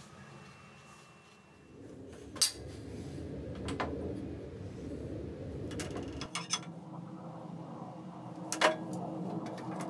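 Wooden blocks and a bar clamp being handled on a metal bandsaw table: a few sharp knocks and clinks, the loudest about two and a half seconds in and near the end, over a steady low hum that starts after the first second and a half.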